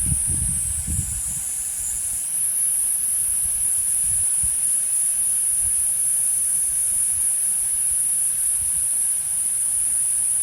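Cicadas singing in a steady, continuous high-pitched chorus, with a few low rumbles in the first two seconds.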